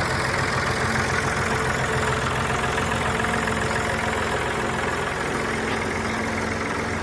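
1987 Massey Ferguson 360 tractor's four-cylinder diesel engine running steadily.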